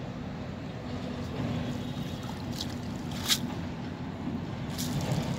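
Water trickling and splashing off a wet cast net as it is hauled out of shallow water, with one sharper splash about three seconds in, over steady background noise.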